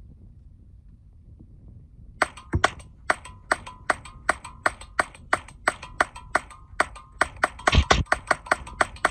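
Ruger 10/22 .22 LR semi-automatic rifle fired rapidly from an extended magazine: about twenty sharp shots at two to three a second, starting about two seconds in and quickening slightly near the end. The steady run of fire shows the magazine feeding without a jam.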